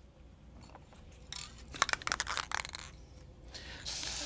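Aerosol spray can: a few clicks and rattles as it is handled, then a steady hiss of spray starting near the end.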